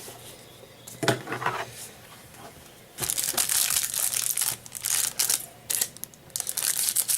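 Plastic shrink-wrap crinkling and tearing as a sealed box of trading cards is opened. There is a short crackle about a second in, then a long stretch of busy crinkling and ripping from about three seconds in.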